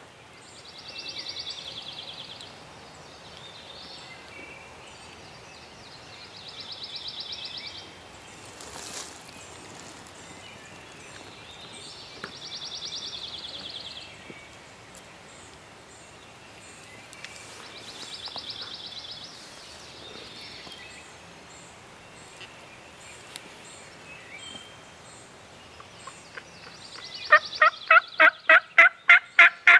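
A songbird's high, buzzy trill repeats about every five to six seconds. Near the end comes a loud run of about ten turkey notes, about four a second.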